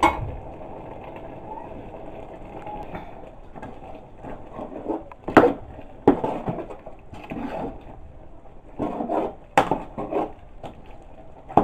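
Soup being stirred in a cooking pot, with the stirring utensil scraping and knocking sharply against the pot a few times, mostly in the second half.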